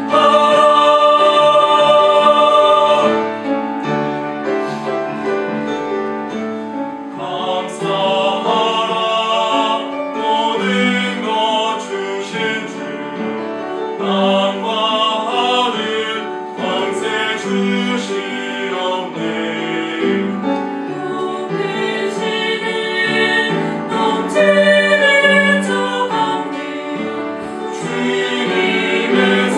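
Mixed-voice vocal ensemble (sopranos, alto, tenors, bass) singing a Korean thanksgiving anthem in four-part harmony, loudest for the first three seconds, softer through the middle, and swelling again near the end.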